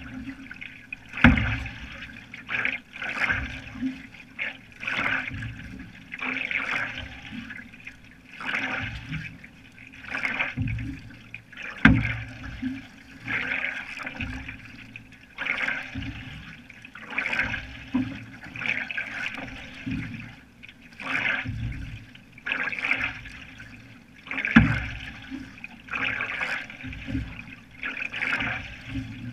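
Canoe paddle strokes in lake water: rhythmic splashing and dripping as the single-bladed paddle dips and pulls, about one stroke a second. A few heavy low thumps stand out as the loudest sounds, about a second in, around the middle and near the end.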